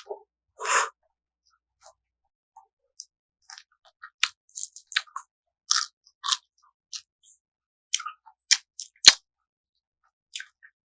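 Close-miked chewing of pinakbet, a Filipino vegetable stew: irregular wet smacks and mouth clicks, with a louder burst about a second in and one sharp click about nine seconds in.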